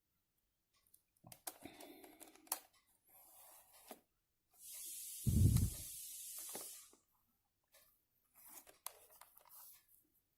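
Small clicks and rustles from hands handling test probes and a resistor, with a louder hiss lasting about two seconds in the middle that has a low thump inside it.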